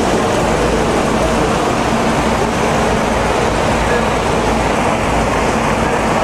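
Small model engine with two crankshafts driving a single piston, running steadily.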